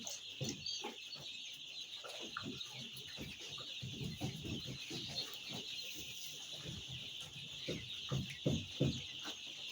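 A brooder full of week-old chicks peeping in a continuous high chorus, with scattered short knocks and rustles of handling over it, a few louder ones near the end.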